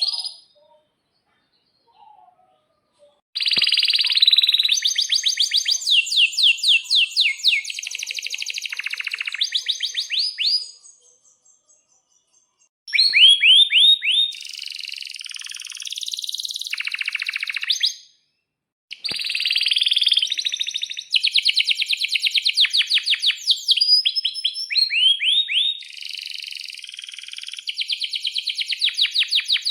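Male domestic canary singing long phrases made of rapid trills and quick rising sweeps, starting a few seconds in and broken by two short pauses.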